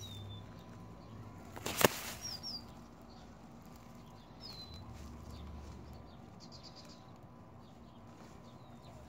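A small bird chirping now and then: short, high, falling chirps, some in quick pairs. About two seconds in comes a single sharp click.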